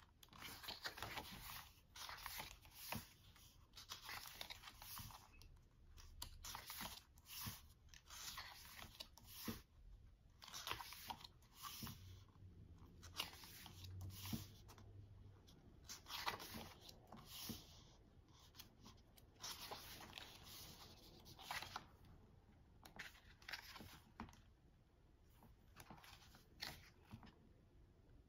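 Faint rustling and flicking of the glossy pages of a K-pop album photobook being turned by hand, in short irregular bursts of paper noise.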